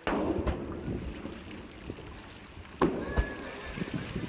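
Two aerial fireworks shells bursting, each a sudden boom with a lingering echo, the second about three seconds after the first.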